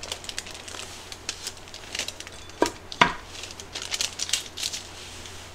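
A paper sheet crinkling as a wooden lid is handled on an aluminium hagama rice pot, with two sharp knocks of the lid against the pot about halfway through.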